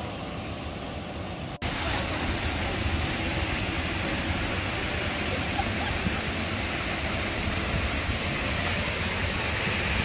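Kalambo Falls, a single-drop waterfall, with the river pouring over the cliff edge: a steady rushing of falling water. About one and a half seconds in it cuts out for an instant and comes back louder and fuller.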